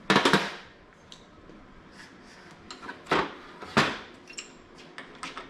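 Steel tools and parts clanking as they are handled while a ball joint press and bolt are set up on a suspension bushing. A loud clatter comes right at the start, then two sharp clanks about three and four seconds in, with light clicks between.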